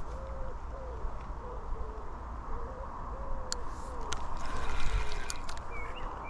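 A pigeon cooing over and over in low, soft notes, over a steady low rumble of wind or river, with a few sharp clicks around the middle.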